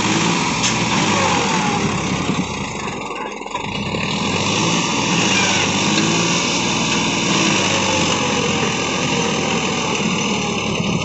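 Massey Ferguson 241 DI tractor's three-cylinder diesel engine running under load as it hauls a trailer heaped with soil through soft, muddy ground. The engine note dips briefly about three seconds in, then picks back up.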